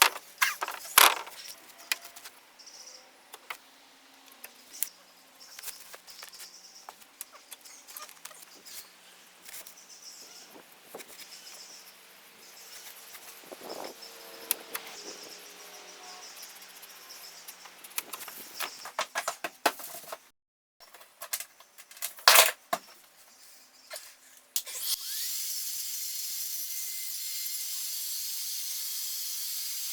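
Scattered knocks and clicks of tools and building materials being handled during drywall and electrical work. For the last few seconds a steady hiss comes in and holds.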